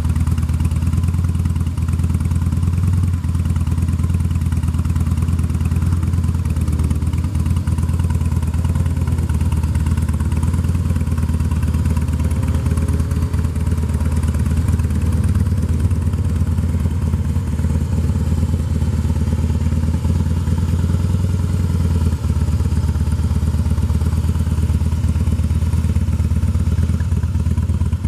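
Harley-Davidson Twin Cam 96 V-twin of a 2007 Heritage Softail, breathing through aftermarket slip-on mufflers, running at a steady idle with a deep, even exhaust note.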